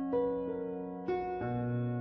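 Gentle background piano music: notes struck a few at a time and left to ring, with a low bass note coming in about one and a half seconds in.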